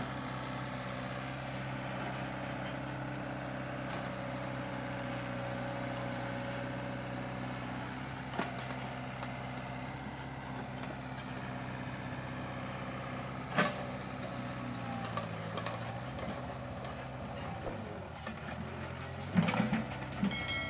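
Sumitomo mini excavator's diesel engine running steadily under throttle, with a few sharp knocks of the machine working. About fifteen seconds in, the engine revs drop, then pick up again near the end.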